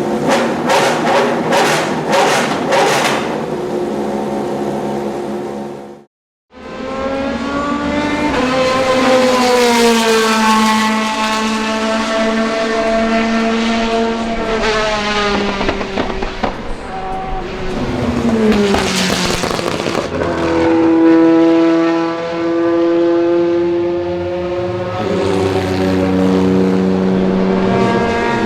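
Ferrari F430 GT2 race car's flat-plane V8 at high revs. It is blipped in short bursts at first. After a brief cut it climbs through the gears and drops back on lifts and downshifts, with sharp crackles in between.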